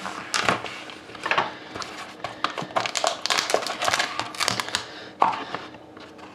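A cardboard trading-card hobby box being opened by hand: a knife slitting the seal, then cardboard scraping and tapping as the lid and inner case are lifted out, with crinkling of the packaging. The sharpest clicks come about half a second in, around a second and a half in and about five seconds in.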